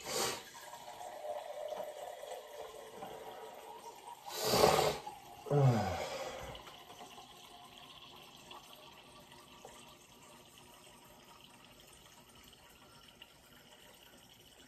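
Kitchen tap running water into a glass for about the first seven seconds, with a brief louder burst about four and a half seconds in.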